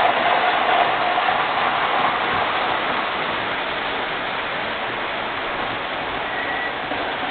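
MTH R40 model subway train running on O-gauge track: a steady rumble and rush of wheels and motor, with a faint whine in the first couple of seconds, slowly fading as the train moves away round the layout.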